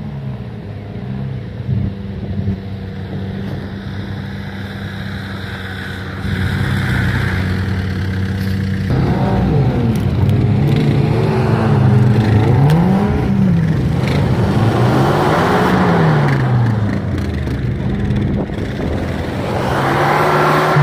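Off-road 4x4 engine running steadily under load, then revving up and down again and again from about nine seconds in as the vehicle crawls over a rutted mud mound.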